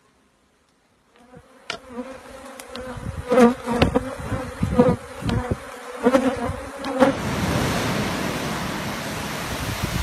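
A swarm of honeybees buzzing in a steady hum, with loud sharp crackles over it, beginning about a second in. About seven seconds in it gives way to a steady rush of surf.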